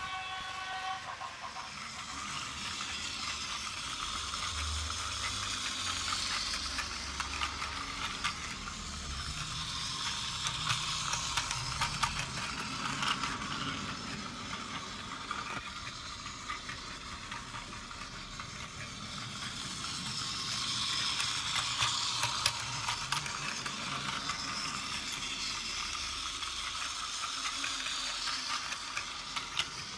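Battery-powered Plarail toy train running on plastic track: a steady buzz of motor and gears with fast clicking of wheels over the track joints. It grows louder and fainter several times as the train comes near and moves away.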